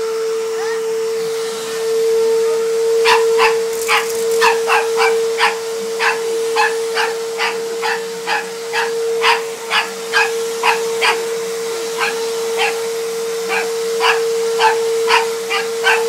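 Vacuum cleaner running with a steady hum. About three seconds in, a papillon starts barking at it in short barks, about two a second, and keeps on.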